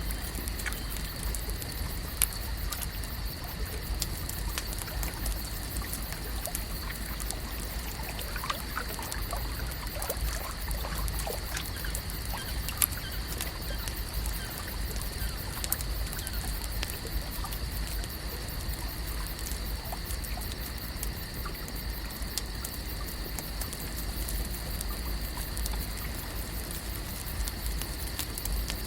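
Lake ambience: water gently trickling and lapping over a steady hiss and low rumble, with scattered small clicks and pops and a steady high-pitched tone.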